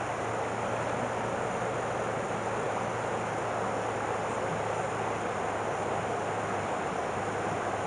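River water rushing steadily, with a faint steady low hum underneath.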